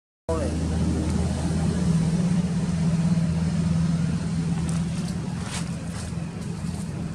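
A motor vehicle's engine running close by, a low steady note that grows louder in the middle and eases off toward the end.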